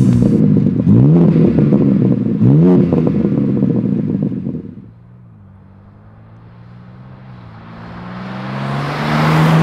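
BMW M3 Competition's S58 twin-turbo straight-six on its stock exhaust, revved in short blips while parked, each a quick rise and fall in pitch. After about five seconds it is heard driving toward the listener at a distance, the engine note steady at first and growing louder as it approaches.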